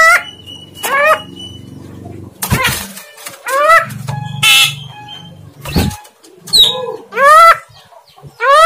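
Javan myna calling: a series of loud, rising whistled calls with harsh, scratchy noise bursts between them.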